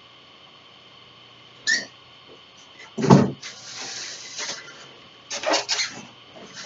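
Hard plastic parts of a stick vacuum being handled and fitted together. There is a light click, then a loud knock about three seconds in, followed by about a second of scraping, and a quick run of clacks near the end.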